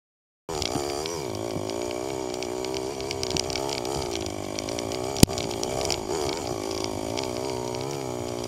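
Dirt bike engine running under way, its pitch rising and falling with the throttle. The sound cuts in after a brief gap near the start, and a single sharp knock comes about five seconds in.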